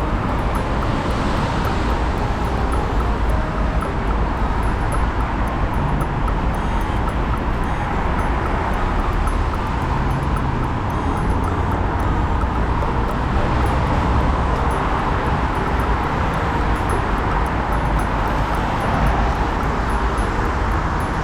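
Steady road traffic noise, with vehicles swelling and fading as they pass every several seconds.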